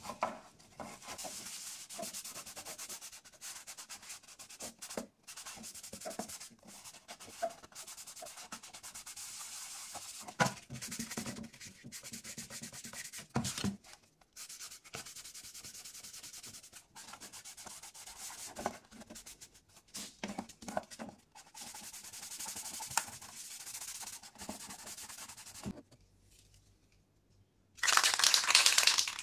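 A cloth rubbing and scrubbing over the hard plastic back cover of an old portable TV: a steady scratchy wiping, broken by short pauses and a few knocks as the cover is handled. After a brief pause near the end, a loud burst of spray hiss.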